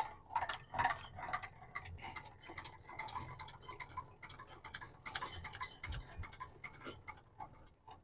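Trailer tongue jack being hand-cranked to raise the tongue: a faint run of irregular clicks and ticks from the jack's gearing, a few a second.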